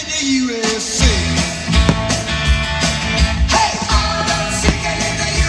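Music with a steady drum beat, coming in after a short lull about a second in.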